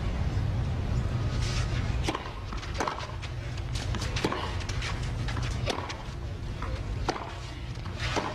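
Tennis rally: a string of sharp racket-on-ball hits and ball bounces, roughly a second or so apart, with players' footsteps, over a steady low hum of crowd and court noise.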